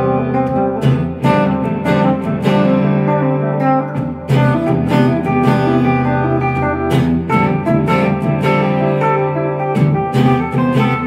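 Two hollow-body electric guitars played together through small amplifiers in a duet of strummed chords and picked notes.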